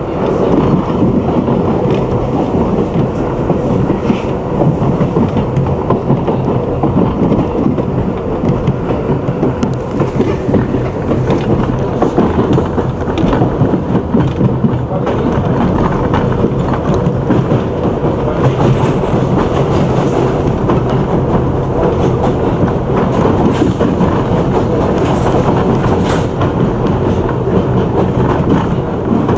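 New York City subway train running steadily, its wheels clattering over the rail joints.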